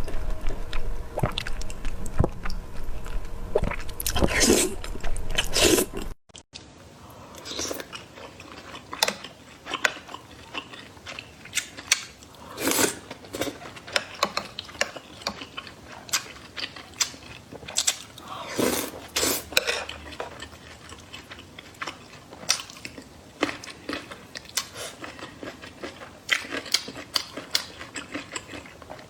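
Close-miked chewing and biting of food in a mukbang: a string of short wet smacks and crunches. About six seconds in the sound cuts to a quieter stretch of the same kind of chewing.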